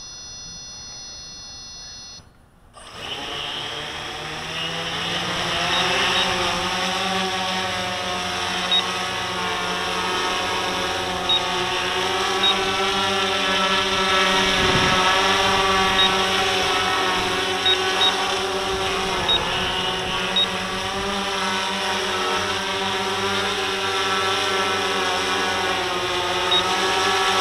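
A held electronic beep for about two seconds, then the RC Timer S1100 octacopter's eight electric motors and propellers spin up about three seconds in and run as a steady multi-tone hum while it lifts off and hovers, the pitch wavering slightly as the flight controller corrects.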